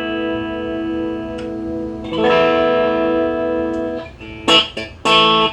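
Strat-style electric guitar with Duncan Designed pickups, played through a Maxon OD-9 overdrive pedal into a Marshall DSL1 amp. A chord rings and slowly fades, a new chord is struck about two seconds in and held, then short chopped chord stabs come near the end.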